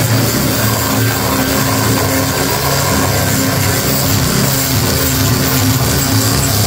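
Handheld electric sanding machine running steadily, its motor hum carrying under the rasp of the abrasive sanding the wood.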